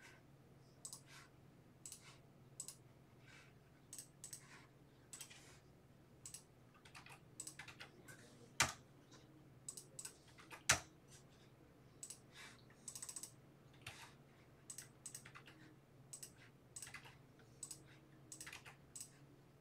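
Typing on a Logitech computer keyboard: faint, irregular key clicks, two of them louder near the middle.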